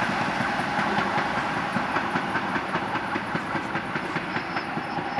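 Passenger carriages of a departing suburban train rolling away over the rails: a steady rushing noise with wheels clicking over rail joints, slowly fading as the train recedes.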